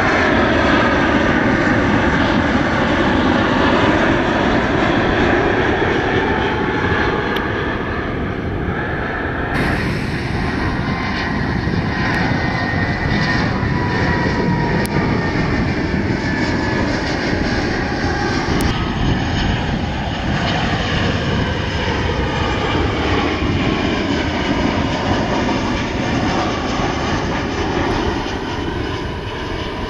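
Twin-engine jet airliners on final approach passing low overhead one after another: a Boeing 767, an Airbus A320-family jet and a Boeing 737, gear down. Their jet engines give a steady rumble with a whine that slides down in pitch as each goes by. The sound changes abruptly about ten and nineteen seconds in, where one pass gives way to the next.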